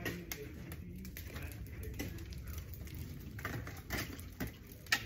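Irregular sharp clicks and cracks, about half a dozen, over a steady low rumble; the loudest crack comes near the end.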